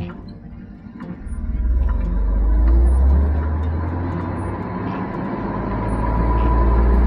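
Low rumble of a vehicle driving along a snow-covered road, engine and road noise that builds about a second in and swells twice, with a faint steady whine above it.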